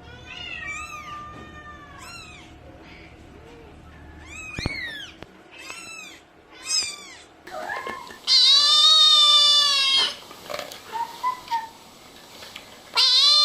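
Kittens mewing: a string of short, high-pitched mews, several overlapping, then one long, loud drawn-out meow about eight seconds in and another starting near the end.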